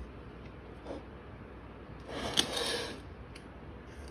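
Glass pan lid with a plastic knob being shifted by hand, a faint knock about a second in and then a scrape lasting about a second, with a click near its middle, about two seconds in.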